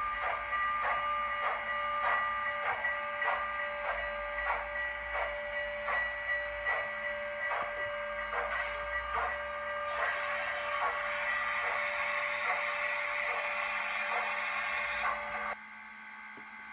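Steam locomotive sound from the ESU sound decoder in an HO scale model of CN 6060: a steady beat of about two chuffs a second, then a hiss of steam for about five seconds that cuts off suddenly near the end.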